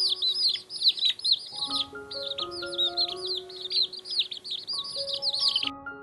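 A brood of chicks peeping, many high arched chirps overlapping without a break, over background music of slow held notes. The peeping cuts off abruptly near the end.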